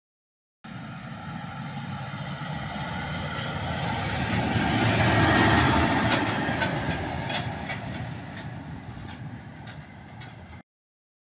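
Claas Arion tractor towing a trailer driving past: engine and tyre noise swell to a peak about halfway through and fade away, with a few knocks and clatters from the rig. It starts about half a second in and cuts off suddenly near the end.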